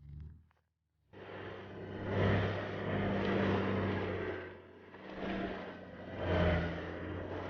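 Engine of a 4x4 off-road vehicle crawling up a steep, rocky trail, revving up and easing off in waves. It comes in about a second in, after a brief near-silent gap.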